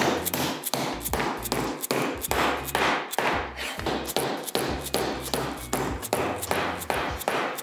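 A mallet striking sway-bar bushings to drive them down into their brackets, with rapid repeated blows, about three a second.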